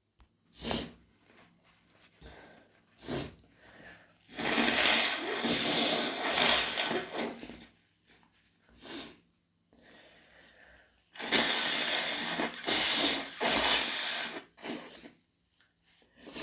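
A woman with hay fever sniffing a few times and blowing her nose twice, each blow a long rush of air lasting about three seconds.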